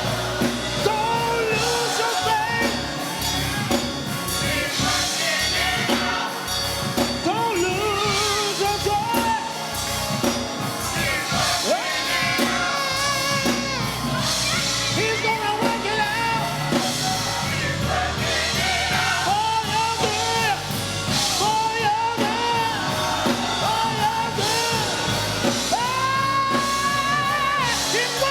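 Gospel singing with a band accompaniment including drums, steady throughout.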